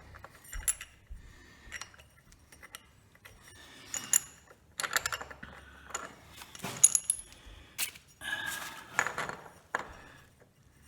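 Irregular clicks and clinks of small metal parts being handled and fitted as a scooter's belt transmission is reassembled by hand, some with a brief metallic ring.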